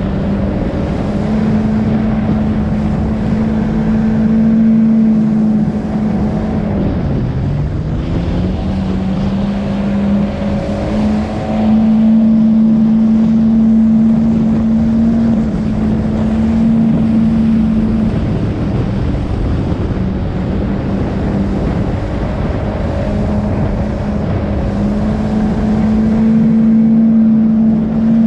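Motorboat engine running steadily at high speed over the rush of water and wind. About seven seconds in, the engine note drops briefly and then climbs back up.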